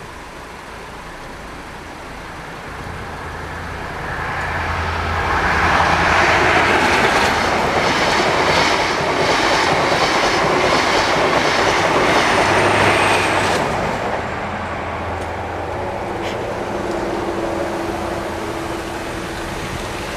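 InterCity 125 (HST) express passing at speed: the diesel drone of the leading Class 43 power car builds, then the coaches rush by with a rhythmic wheel clatter, loudest for about seven seconds. The rear power car passes near the end of the loud part and the sound fades away.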